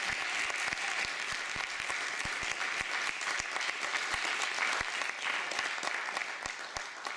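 Audience applauding steadily, a dense patter of many hands clapping that tapers off near the end.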